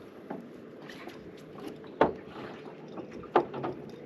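Water moving around a fishing boat, with two sharp knocks about two and three and a half seconds in.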